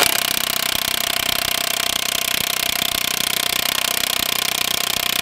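Cordless impact wrench hammering rapidly and without pause on a car's wheel bolt, with a steady whine under the blows. The bolt is seized and does not come loose under the gun.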